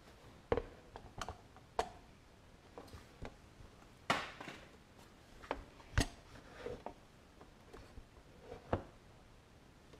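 Scattered light clicks and knocks of metal tools and engine parts being handled, about ten in all, with a short scrape about four seconds in.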